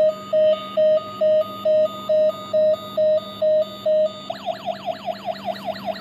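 Toy ambulance's battery-powered electronic siren sounding. It plays about two short beeps a second on one tone, then about four seconds in switches to a fast rising-and-falling yelp, over a low steady hum.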